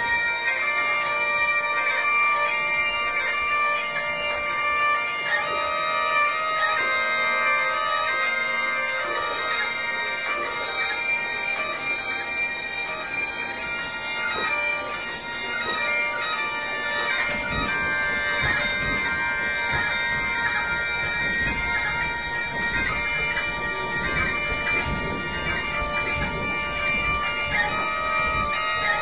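Bagpipes played by a single piper: steady drones under a moving chanter melody. A low, unsteady rumble joins the piping a little past halfway.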